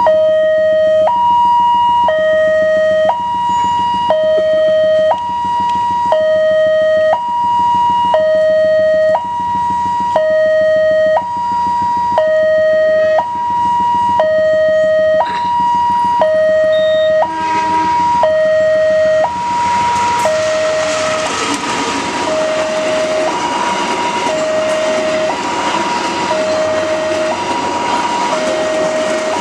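Railway level-crossing alarm sounding a two-tone electronic chime, a higher and a lower tone alternating about once a second each. About two-thirds of the way in, a passenger train arrives and runs through the crossing, and the noise of its wheels on the rails rises loud over the alarm.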